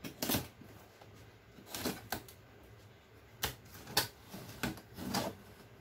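Utility knife slicing packing tape along the seams of a cardboard box: about seven short, sharp scrapes and cuts, spaced irregularly.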